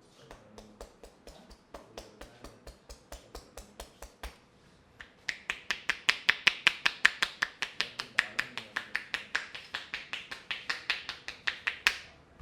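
Rapid, evenly spaced sharp taps or clicks, about four to five a second, faint at first and then much louder after a short pause about five seconds in.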